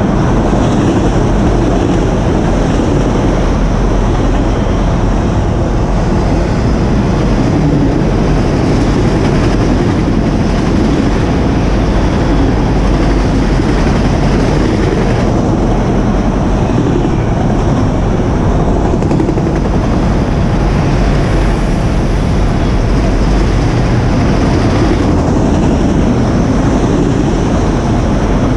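Freight train of autorack cars rolling past close by: a steady, loud rumble of wheels on the rails.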